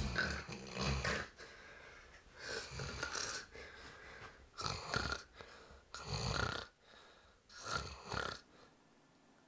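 A man snoring in his sleep: about five snores at an even pace, roughly one every two seconds.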